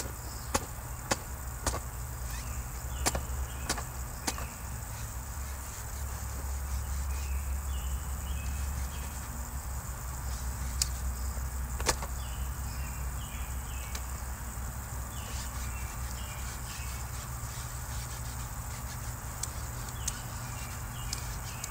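Towel wiping the edges and frame of a window screen held upright, with sharp clicks and taps from the handled frame, several close together at first, one loud about halfway through. A steady low rumble runs underneath, and faint high chirps come in short groups.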